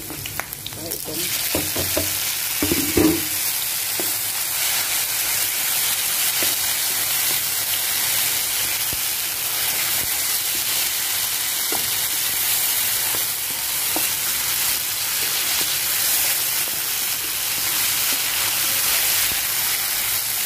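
Garlic, onion and tomato sizzling in hot oil in a frying pan, a steady hiss that grows louder about a second in. A few knocks and scrapes of the stirring spoon sound in the first four seconds and now and then after.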